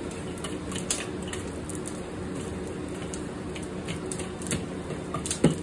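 Oak wood and charcoal burning in a kettle grill, crackling with irregular sharp pops over a steady low background noise. A sharper knock comes near the end.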